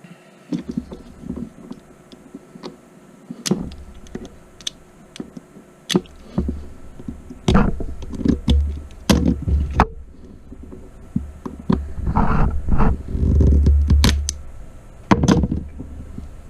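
Workbench handling noise: irregular clicks, knocks and clunks of tools and stiff coax cable being moved about, heaviest in the second half.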